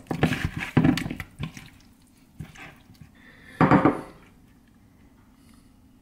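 Hands tossing wet, seasoned raw chicken wings in a plastic mixing bowl: a quick run of knocks and squishes for about the first second and a half. A single louder knock comes about three and a half seconds in.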